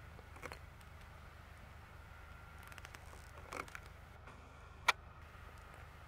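A few short, sharp clicks, the loudest about five seconds in, over a steady low rumble.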